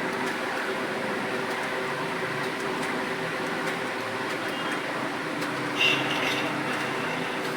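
Steady machine hum in a small room, with faint, irregular clicks of computer keys during typing, and a brief higher-pitched sound about six seconds in.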